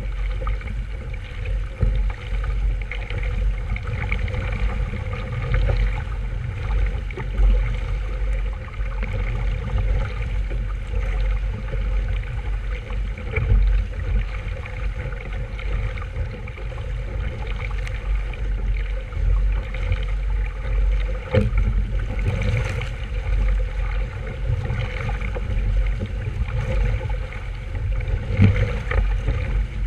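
Water rushing and sloshing along a sailboat's hull under way, over a heavy, uneven low rumble.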